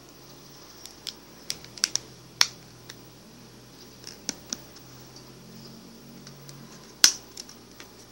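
About fifteen irregular sharp clicks and taps over a steady hiss, the loudest about two and a half seconds in and another near the end.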